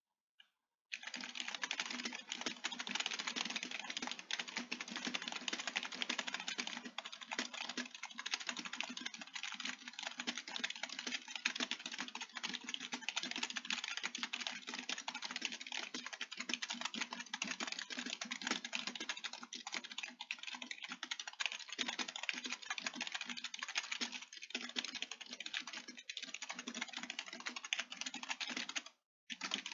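Fast, continuous typing on a computer keyboard: a dense stream of key clicks that starts about a second in and pauses briefly near the end.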